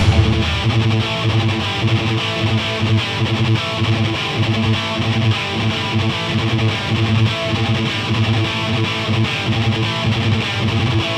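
Recorded instrumental heavy metal: a distorted electric guitar plays a repeating riff over a steady low end.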